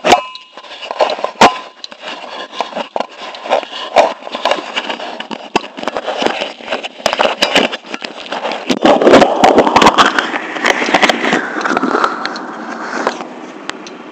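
Fingers handling and covering a camera, rubbing and knocking right against its microphone in a run of irregular clicks and scrapes. About nine seconds in, a rising whine joins, levels off and cuts off shortly before the end.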